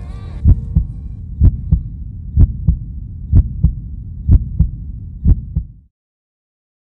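A heartbeat sound effect: six double thumps, lub-dub, about once a second over a low drone, cutting off abruptly about six seconds in.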